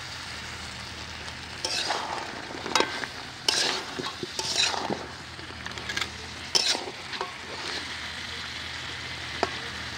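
Crab and potato masala sizzling in a metal wok while a flat metal spatula scrapes and turns the pieces in irregular strokes, the spiced curry being sautéed down.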